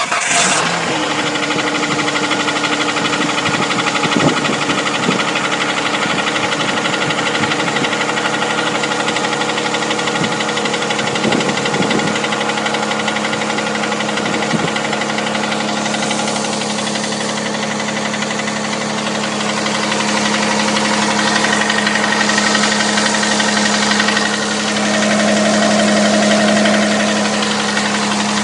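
6GEA engine running at idle, just after starting, with a knock in it; it gets somewhat louder about two-thirds of the way through.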